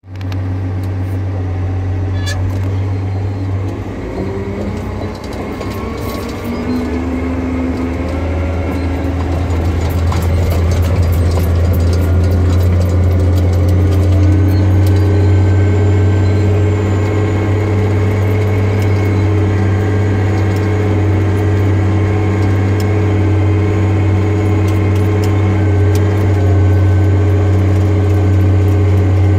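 Caterpillar D10T bulldozer's C27 diesel engine working under load as the dozer climbs a steep ramp, heard from inside the cab. It is a steady low drone that wavers in pitch early on and grows louder and fuller about ten seconds in. Scattered clicks and rattles come through in the first half.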